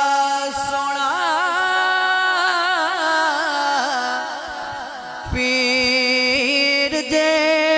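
A man singing a naat in a long, drawn-out melodic line. He holds notes and bends them with quick wavering ornaments, then moves to a new held note about five seconds in.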